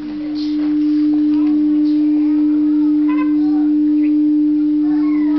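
A single loud, steady pure tone a little above middle C, swelling over the first second and then holding level, with faint children's voices behind it.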